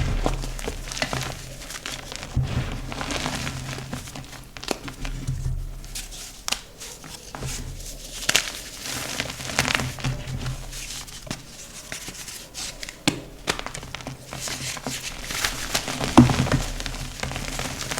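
Blocks of dyed gym chalk being crushed and crumbled, with dense, irregular crunching and crackling and a few louder crunches.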